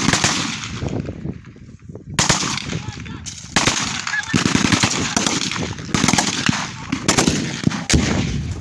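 Automatic gunfire in repeated bursts of rapid shots, a new burst starting every second or two in an exchange of fire.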